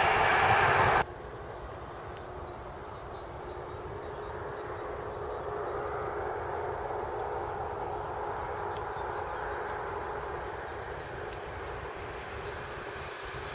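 A train passing close by, loud for about a second, then cut off abruptly. After it comes a fainter steady distant drone that swells and eases, with faint high chirps over it.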